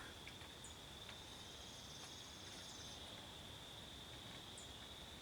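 Faint, steady, high-pitched insect trill over near silence, with a second, higher trill joining for about two seconds a second in.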